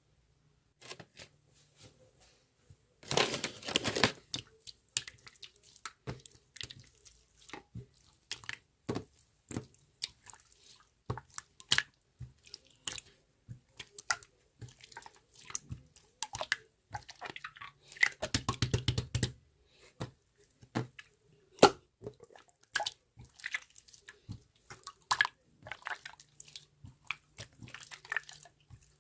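Close-up crunching and clicking sounds, irregular, with two denser, louder bursts: one about three seconds in and one about eighteen seconds in.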